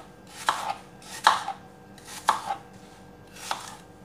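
Kitchen knife cutting a peeled apple on a plastic cutting board: a crisp knock of the blade through the fruit onto the board about once a second, at an uneven pace.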